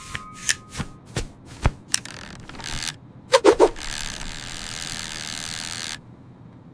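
Cartoon sound effects: a run of light knocks and clicks, two quick squeaky pitch glides, then about two seconds of rustling that cuts off suddenly.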